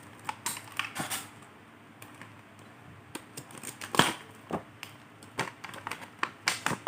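Irregular light clicks and taps of small hard objects being handled, with one sharper click about four seconds in.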